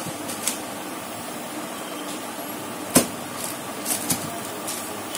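A plastic sheet rustling and crinkling in short bursts as hands handle the candy on it, with one sharp tap about three seconds in, over a steady background hum.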